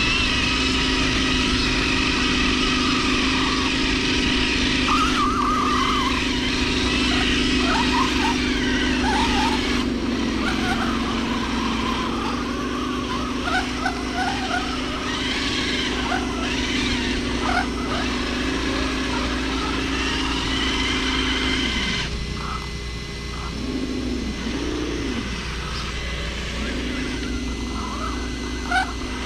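Electric motor and gearbox of a radio-controlled crawler whining steadily as it drives, the pitch wavering up and down about three-quarters of the way through as the throttle changes. Short, high chirps come and go over it.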